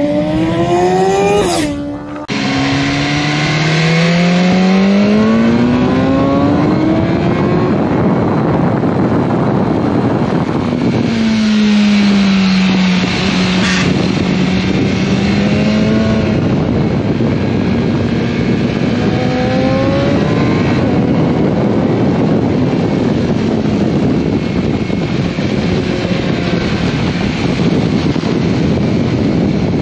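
BMW S1000R inline-four engine heard onboard at speed, climbing in pitch through long pulls, falling about eleven seconds in as the throttle closes, then running high and steady again.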